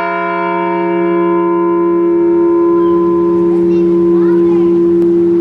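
Liberty Bell replica ringing on after a single memorial toll: a deep hum with many higher overtones. The upper overtones die away over a few seconds while the low tones keep sounding strongly.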